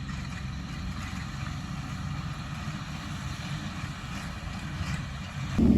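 Tractor engine running with a steady low rumble. Near the end the sound suddenly gets much louder and fuller.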